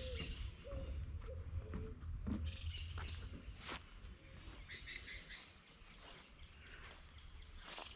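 Birds chirping in short bursts over a steady high insect hum, with a low rumble in the first half.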